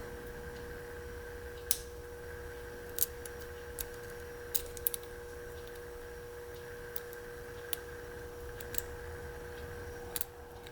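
Lock pick and tension wrench working the pin stack of a Hermex CH-50 padlock under heavy tension: scattered small metallic clicks and ticks, about ten over several seconds, irregularly spaced.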